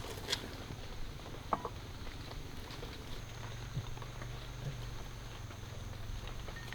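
Bowls and utensils clinking and tapping as rice is served: scattered light clicks with one brief ringing clink about a second and a half in, over a low steady hum.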